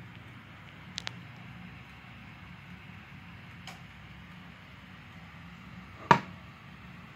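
Clicks and a knock from the wooden case of a mechanical mantel clock: a quick double click about a second in, a faint click a few seconds later, and a much louder sharp knock with a short ring about six seconds in as a hand pushes against the back of the case.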